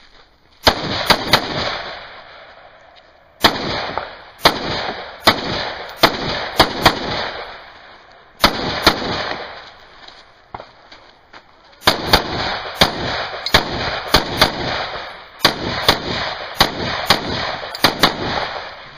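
AR-style semi-automatic rifle fired in quick strings of shots, roughly two a second, with short pauses between strings. Each shot is a sharp crack followed by a ringing echo.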